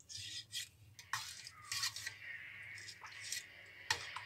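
Metal spoon stirring thick yogurt raita (lauki raita) in a steel bowl: repeated wet scraping strokes, with a few sharp clinks of the spoon against the bowl.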